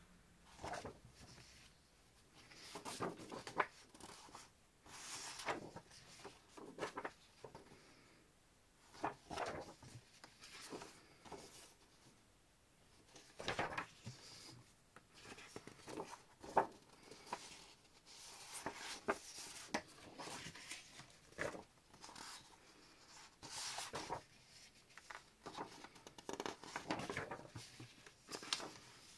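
Sheets of scrapbooking paper being handled and turned over one by one: irregular rustling and sliding of paper in short bursts every second or two.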